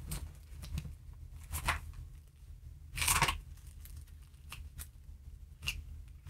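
Thin paper pages of a Bible rustling as they are flipped to find a verse. There are soft scattered rustles and ticks, with one louder page swish about three seconds in.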